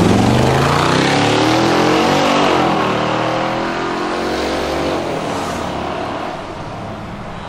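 Mercedes-Benz CLS engine revving hard as the car pulls away, its pitch climbing and then dropping once about two and a half seconds in at an upshift. It then fades as the car drives off into a road tunnel.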